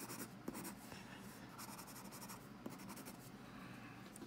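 Graphite pencil scratching on paper, faint, in spurts of quick back-and-forth hatching strokes as shading is laid in.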